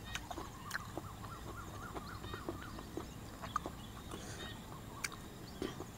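Small paddy-field frogs (khiat) calling in many quick, short chirps, mixed with scattered crisp clicks and crunches of someone dipping and eating raw vegetables.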